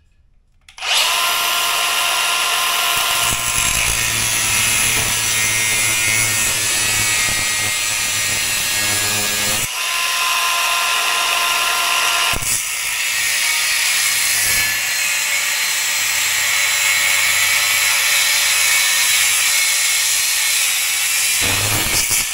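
A power cutting tool running steadily with a high whine and hiss as it cuts through a steel car coil spring, taking coils off to lower the car; it starts about a second in and dips briefly twice.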